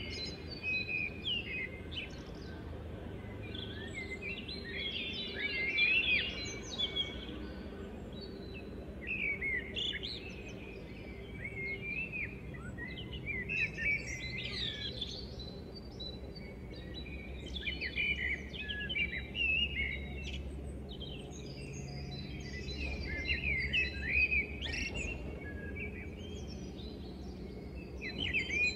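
Young puppies whining and squeaking, short high sliding squeaks that come in clusters every second or two, over a steady low hum.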